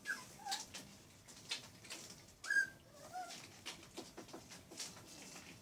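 Springer spaniel puppies squeaking and yelping as they play-fight in their bed: a few short, high, wavering squeals, the loudest about two and a half seconds in, over small scuffling clicks.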